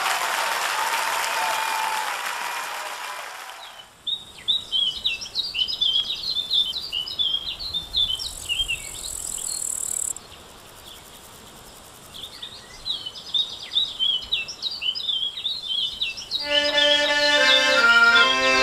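Applause fading out over the first few seconds, then songbirds chirping and twittering. Near the end a button accordion starts playing a tune.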